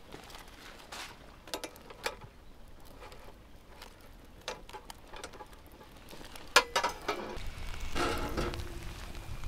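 Light taps and clicks of food being handled, with a sharp ringing clink of dishware about two thirds of the way in and more ringing clinks a second later. A low rumble comes in near the end.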